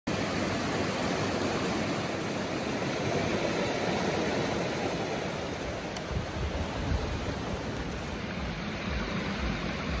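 Shallow stream rushing over rocks: a steady wash of running water, with occasional low rumbles in the second half.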